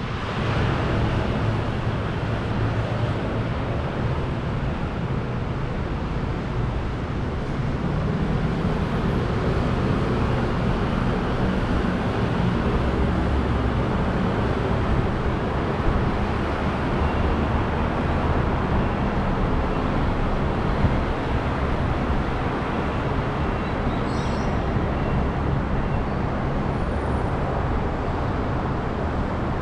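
City street traffic: motor vehicles running and passing with a steady, continuous rumble.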